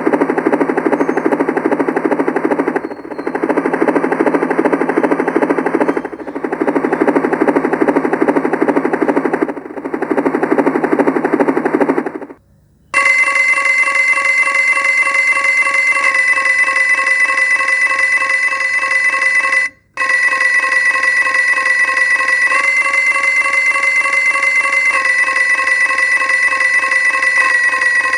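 Casio SA-78 keyboard's built-in sound-effect tones. First a rapid gunfire-like rattle in spells of about three seconds. Then, after a short pause about 12 seconds in, an electronic telephone-bell-like ring, broken briefly about 20 seconds in.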